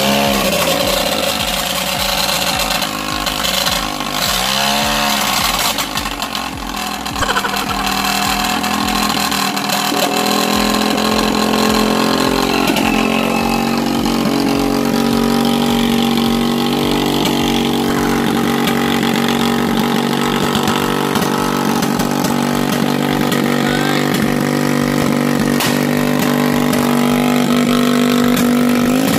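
Motorcycle engine of a SYM-powered moto araro running loud and steady through a replacement aftermarket exhaust muffler. There are a few brief revs about four to five seconds in and some sharp pops.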